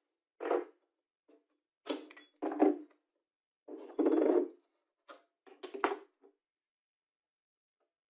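Metal parts of an old bench grinder being handled as its grinding wheel is taken off the arbor: a series of short clinks, knocks and scrapes, with a longer scrape about four seconds in and a clink that rings briefly near the end.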